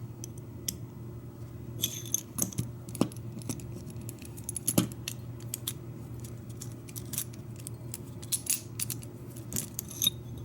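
Small metal clicks and taps from the parts of a rekeyed Schlage deadbolt cylinder being handled as its cap is fitted back on, coming irregularly, with the sharpest click about halfway through.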